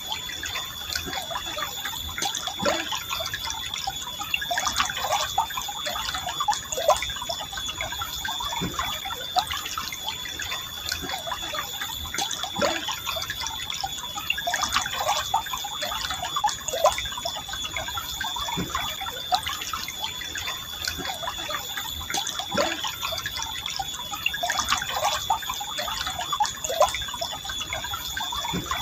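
A river flowing gently, with a constant run of small irregular gurgles and plops of water. A thin, steady high tone runs underneath.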